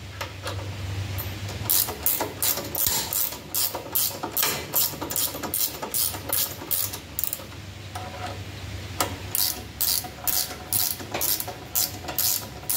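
Ratcheting wrench backing out a frame bolt, its pawl clicking on each back-swing in quick strokes about two to three a second, with a short pause a little past the middle.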